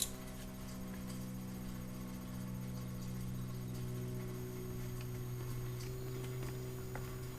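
Faint, scattered small clicks and taps of a screwdriver working against a plastic car door panel, with a sharper click at the very start, over a steady background hum.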